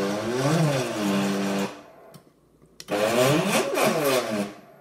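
Stepper motors in both SteppIR UrbanBeam element housing units whining as they drive the antenna element tapes together on a controller motor test. They run in two spells: one stops about a second and a half in, the next starts about three seconds in, and in each the pitch glides as the motors speed up and slow down.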